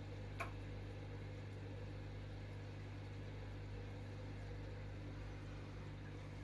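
Steady low electrical hum of aquarium equipment such as a filter pump, with a faint hiss. A single short click about half a second in.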